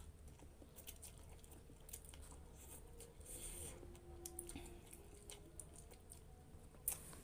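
Faint chewing and mouth sounds of a person eating instant cup noodles, with scattered small clicks and a soft hiss about three seconds in.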